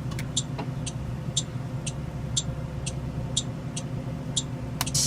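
2020 Blue Bird Vision school bus gasoline engine idling under a steady, even clicking of the warning-light flasher, about two ticks a second. A sharper click comes near the end.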